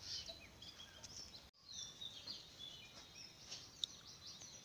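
Small birds chirping, many short high calls over a faint background hiss. The audio drops out completely for a split second about a second and a half in, then the chirping carries on.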